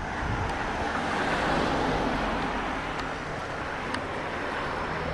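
Road noise of a passing vehicle, swelling to a peak about a second and a half in and then easing off.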